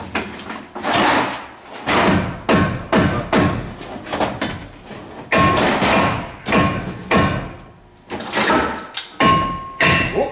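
Heavy hammer blows on steel front-end parts of a Ram 3500, about a dozen strikes in uneven bunches, each ringing briefly, to knock a seized component loose after a soak in penetrating oil.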